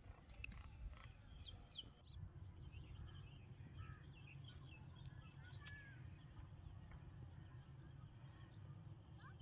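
Faint wild birdsong: a few quick, high sweeping chirps about a second in, then scattered softer chirps, over a low steady rumble.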